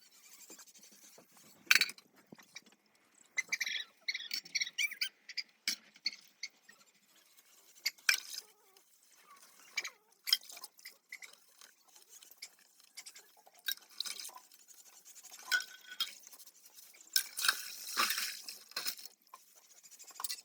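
Utensils being washed by hand: irregular clinks and knocks of dishes, squeaky scrubbing a few seconds in, and water splashing, with a longer splashing stretch near the end.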